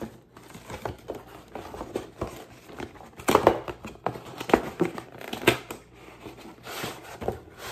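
A cardboard tackle box and its packaging being opened by hand: irregular crinkling, scraping and tearing of cardboard and paper, loudest in the middle.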